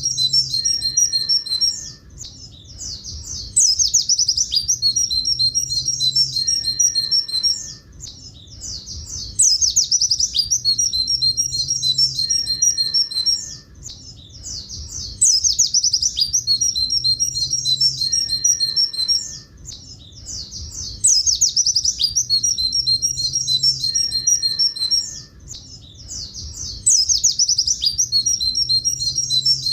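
Pleci buxtoni white-eye singing the same high-pitched phrase over and over, about every six seconds. Each phrase is a quick trill followed by a long run of evenly repeated 'tulit tulit' notes, with a short pause before the next.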